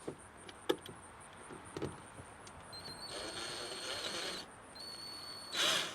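A small electric motor whirring with a steady high whine in two short runs, the first about three seconds in, the second shorter, with a few sharp clicks before and a louder rush of noise near the end.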